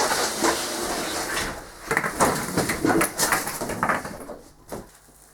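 Cardboard scraping and rustling as a large shipping carton is slid up and off a new tool chest, with several louder rubs and knocks, dying away near the end.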